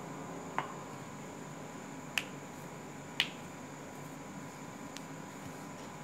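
Three short, sharp clicks, spaced a second or so apart, over a steady faint hiss with a thin steady hum.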